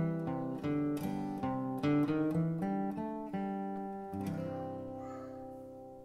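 Background music: a plucked-string instrumental picking a run of single notes, then ending on a chord about four seconds in that rings on and fades away.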